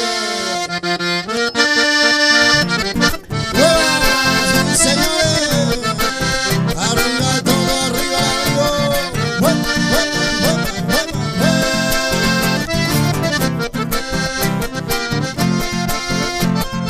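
Two accordions playing a lively instrumental passage together, with acoustic guitar and a steady bass rhythm underneath. The music breaks off for a moment about three seconds in and then comes straight back in.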